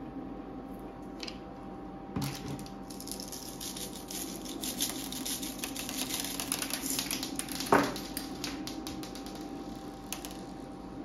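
Confetti sprinkles shaken from a plastic shaker, rattling inside it and scattering onto the ice cream and the steel tray as a fast run of tiny clicks, with one louder knock about two thirds of the way through.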